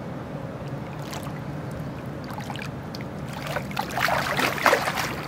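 A steady low drone, then water splashing loudly for about a second and a half near the end.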